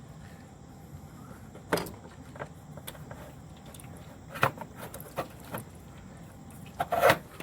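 Several sharp metallic clanks and clicks as an oil filter wrench is worked on the tractor engine's spin-on oil filter to loosen it. The loudest comes near the end.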